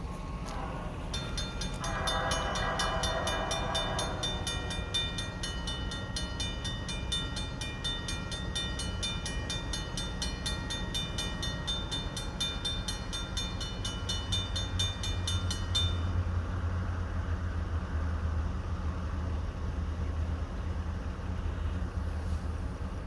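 A railroad grade-crossing bell rings rapidly, about four strokes a second, and stops about 16 seconds in. A short train horn blast sounds about two seconds in. From about 14 seconds a deep, low diesel locomotive rumble rises as the train comes through.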